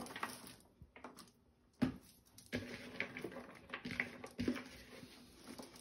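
Sliced onions tipped from a plastic bowl and spread by hand over a parchment-lined baking tray: faint soft rustling and patting, with two sharp knocks, one about two seconds in and one past the middle.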